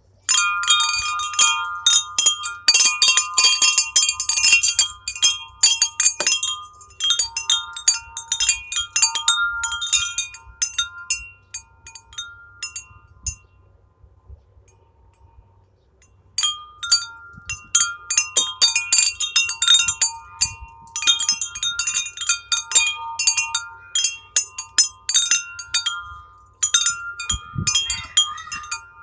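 Chime ringing with many quick, overlapping strikes, its clear tones hanging on between hits; the ringing dies away to quiet, then starts up again about sixteen seconds in.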